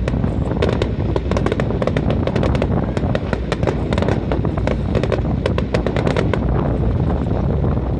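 Fireworks display: many shells crackling and popping in rapid, overlapping bursts, several a second, over a steady low rumble.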